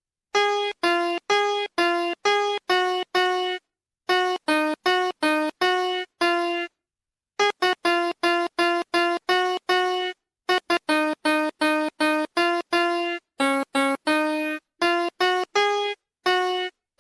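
VTech Smartville train station toy's sound chip playing a children's tune in a simple electronic piano-like tone, one note at a time. The short notes come in evenly timed phrases, each cut off cleanly, with brief pauses between phrases.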